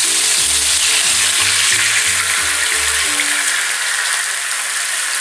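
Browned rabbit pieces sizzling in a hot pan over high heat as white wine is poured in to deglaze, a steady frying sizzle.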